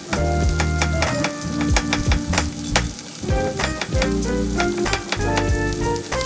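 Food frying in a pan, sizzling and crackling as it is stirred, under background music with a melody and bass line.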